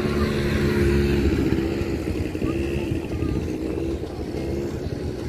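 Small quad bike (ATV) engine running as it rides across the sand, its pitch steady at first, then wavering from about a second in.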